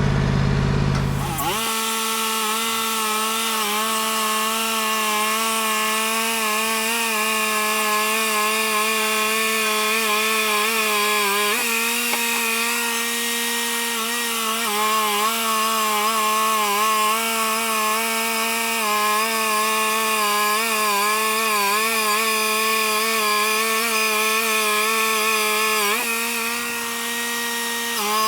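Wood-Mizer portable band sawmill sawing through a hickory log: engine and band blade running steadily under load. About a second and a half in it comes up from idle to cutting speed, and the pitch shifts slightly a few times as the load on the blade changes.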